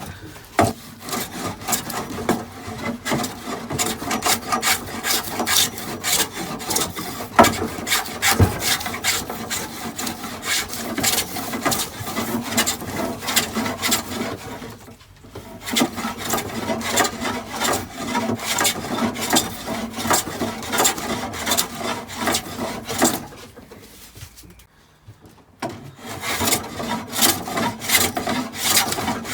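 Hand plane shaving a pine board in repeated quick rasping strokes, taking the edge down to a marked line after a rip cut. The strokes pause briefly about halfway through and again near the end.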